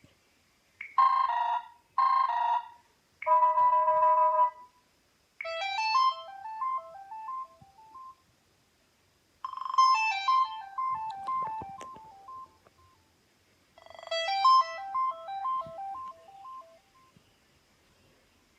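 Samsung Galaxy Y phone ringtones playing: three short electronic tones, then a melody of quick stepping, bell-like notes that fade away, repeated three times about four seconds apart.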